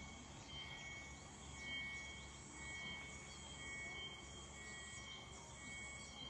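Insects chirping in a steady rhythm, a short high note about once a second, over faint forest ambience.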